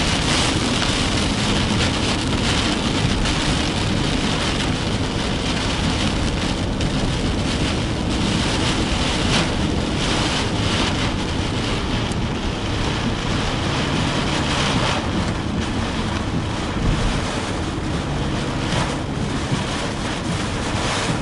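Heavy rain and strong wind beating on a moving car, heard from inside the cabin, with stronger gusts now and then: the wind and rain of a weak tornado's circulation as the car crosses its path.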